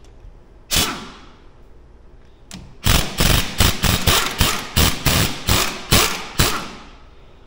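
Pneumatic impact wrench taking lug nuts off a UTV wheel. There is one short burst about a second in, then from about three seconds in a quick run of about a dozen short bursts, roughly three a second.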